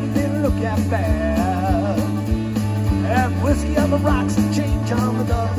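Live rock band playing: electric guitars, bass and drum kit, with a lead vocal line over them.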